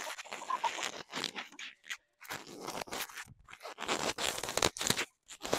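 Microphone handling noise: fingers rubbing and fiddling with the microphone up close, giving irregular scraping and crackling rubs with a short pause partway through.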